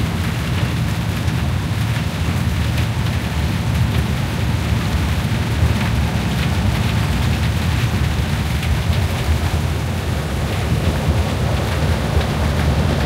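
Steady low rumble of a moving bus, heard from inside the cabin, with rain hitting the side window in faint scattered ticks.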